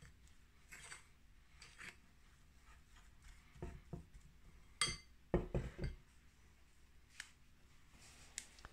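Faint, scattered scrapes and taps of potato dough being mixed in a glass bowl, with a few louder low knocks a little past halfway.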